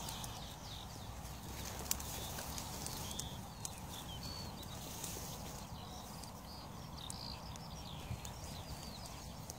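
Open-field ambience: scattered short bird chirps over a low rumble of wind on the microphone, with a few sharp clicks and rustles from the dry grass.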